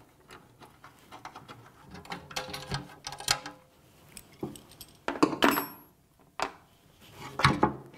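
Small metallic clicks and clinks of a hex key turning the cover screws of an inverter, irregular, with a few louder knocks in the second half.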